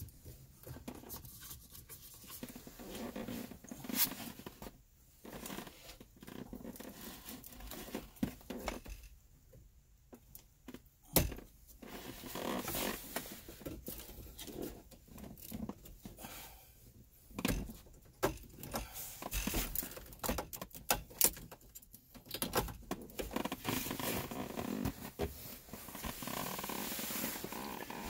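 Hands working under a car dashboard: irregular clicks, knocks and rustling as plastic wire-harness connectors are unplugged and the wiring is moved about, with a sharper knock about eleven seconds in.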